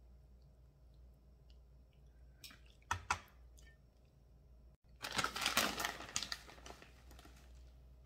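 A few sharp clicks of metal kitchen tongs against the pan, then a plastic bag of grated parmesan crinkling for about two and a half seconds as it is handled.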